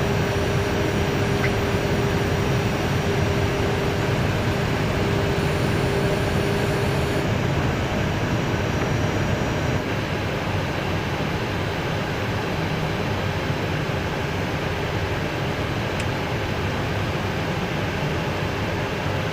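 Steady rushing air and engine noise on the flight deck of an Airbus A320 on approach with the landing gear down. A steady hum runs under it and stops about seven seconds in.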